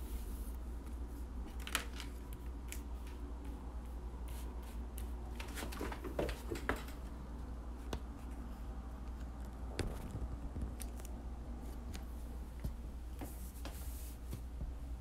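Trading cards and plastic card holders being set down and slid into rows on a tabletop: scattered light clicks and taps, over a steady low hum.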